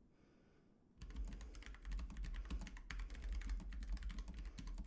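Typing on a computer keyboard: a quick, uneven run of keystrokes starting about a second in, entering a sentence-long text prompt.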